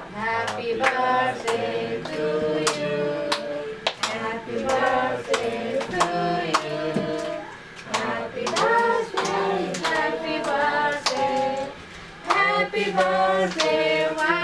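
A group of children and adults singing together, clapping their hands in time with the song in steady, regular claps.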